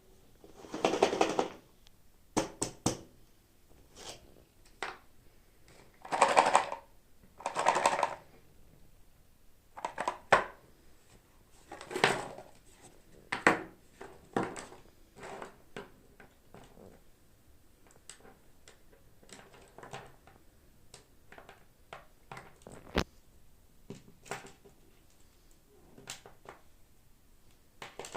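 Toy packaging being opened and handled by hand: several bursts of crinkling and rustling, with scattered small clicks and taps between them.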